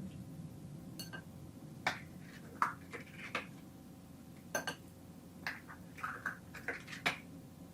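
Scattered light clinks and taps of kitchen utensils and containers, about a dozen at irregular intervals, a few ringing briefly, over a low steady hum.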